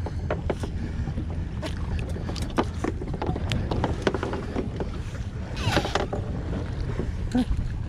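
Steady wind and water rumble on a small boat at sea, with scattered sharp clicks and rustles of a caught California sheephead being handled and unhooked. A louder rush of noise comes about six seconds in.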